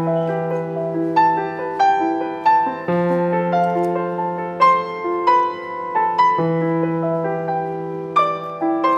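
Background piano music: single notes struck at an unhurried pace over long-held low notes.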